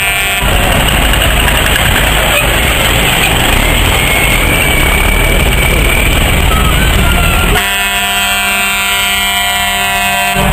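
Heavy trucks' engines running loud and rough, then a truck air horn sounds one steady chord for about three seconds near the end.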